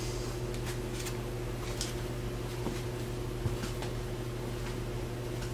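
Steady low hum of room background, with a few faint light clicks scattered through it.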